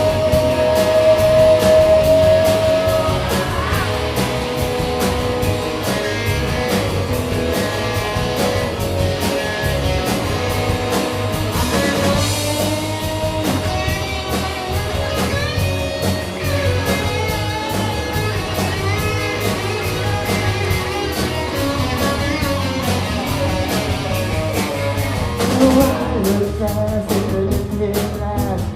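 Live rock band playing an instrumental passage, guitar to the fore: a long held note at the start, then a lead line of bending notes over the band.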